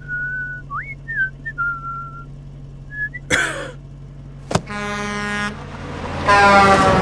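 Cartoon sound effects: a person whistling a short wandering tune over a low hum, a quick whoosh about three seconds in, then a truck horn blaring twice, the second blast louder and mixed with the rush of the truck going by.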